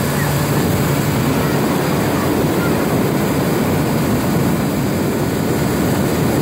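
Motorboat running at speed: a steady engine drone mixed with the rush of wind and water.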